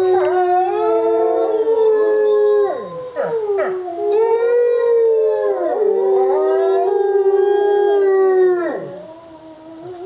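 Two gray wolves howling together in long, overlapping howls at different pitches, each howl ending in a falling glide. There is a brief dip about three seconds in and a quieter gap near the end.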